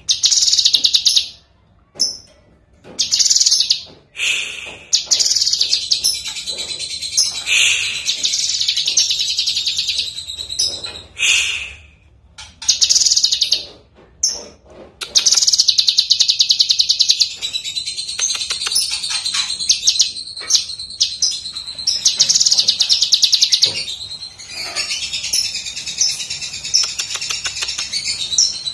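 Orange-bellied leafbird (cucak kinoi) singing loudly: separate short bursts of song in the first half, then, from about halfway, a long almost unbroken run of rapid trilled notes.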